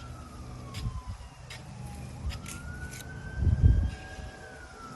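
A siren wails in the background, one tone slowly rising and falling about every four seconds. A low rumble, loudest about three and a half seconds in, and a few short clicks sit under it.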